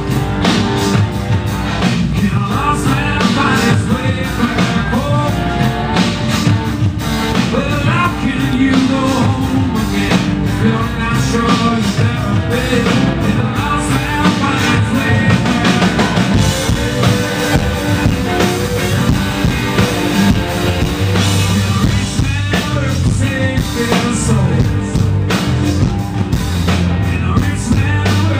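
Live rock band playing loud: electric guitar and drum kit with a singer at the microphone.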